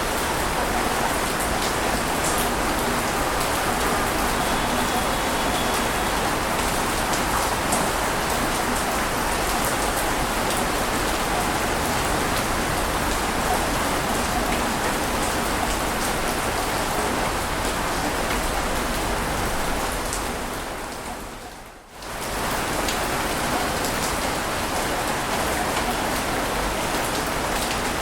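Steady rain with fine pattering drops. About three quarters of the way through it fades down briefly and comes back up, as at the loop point of an ambience track.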